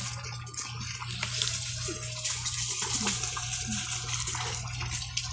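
Water pouring steadily from a hose into a large plastic tank, splashing onto the water surface, with a low steady hum underneath.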